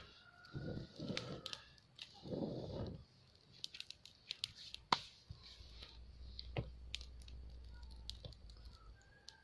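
Dry straw and twigs rustling and crunching as they are pushed into a small open wood fire, in three short bursts, followed by scattered sharp crackles and pops from the burning twigs.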